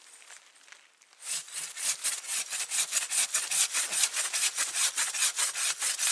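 Hand saw cutting through the trunk of a small spruce in fast, even strokes of about five a second, starting about a second in.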